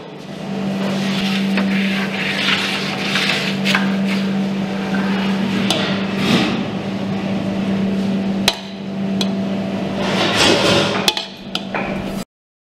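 Kitchen utensils working on metal cookware: a knife and a serving spoon scraping and knocking against an aluminium tray and a steel pot, with a few sharp clicks near the end, over a steady low hum. The sound cuts off suddenly just before the end.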